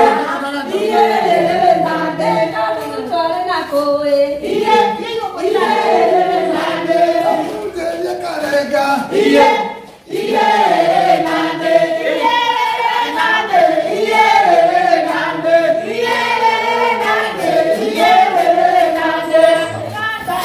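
A group of people singing together to serenade someone, with many voices sounding at once. The singing breaks off for a moment about halfway through, then carries on.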